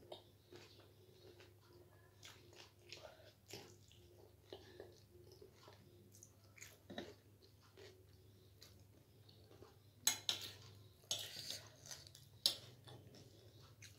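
A person chewing and crunching crisp snack food close to the microphone, with small crackles throughout and a run of louder, sharper crunches about ten seconds in.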